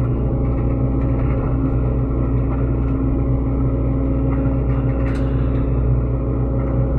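Diesel engine of a Sany SY75C mini excavator running steadily at working speed, with a few faint clanks about five seconds in.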